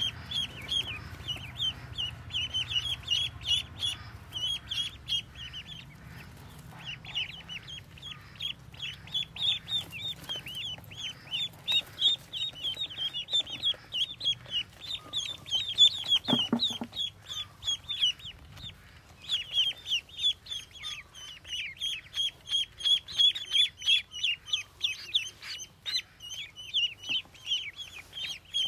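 Newly hatched ducklings peeping, a fast, continuous run of short high chirps, several a second, from the brood in the nest basket and the one being held. A short lower sound breaks in just past halfway.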